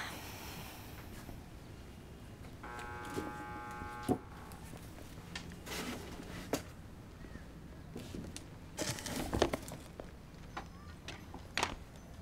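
Quiet room tone with scattered soft rustles and small knocks, a few of them bunched together near the end. A brief pitched tone sounds about three seconds in.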